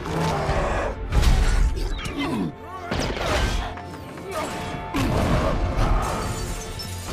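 An action-film soundtrack: sustained music mixed with battle sound effects, with heavy crashes and smashing debris about one, three and five seconds in.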